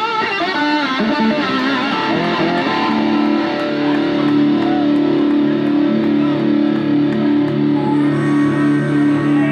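Electric guitar played live with a rock band. It starts with lead notes that bend and waver, then about three seconds in settles into a heavy, sustained riff with strong low notes.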